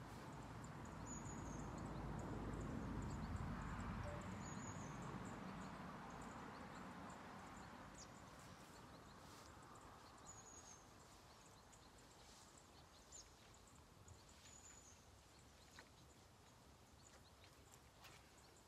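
Quiet lakeside ambience: a soft rushing swell that peaks a few seconds in and slowly fades, with a handful of faint, brief high chirps from small birds.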